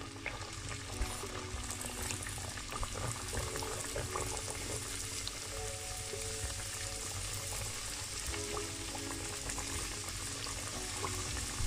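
Pieces of yeast dough deep-frying in hot vegetable oil, a steady sizzle with small crackles, with background music playing under it.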